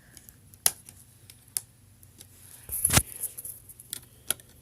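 Snap Circuits plastic parts being handled and snapped into place: a few separate sharp clicks, the loudest about three seconds in after a short rustle.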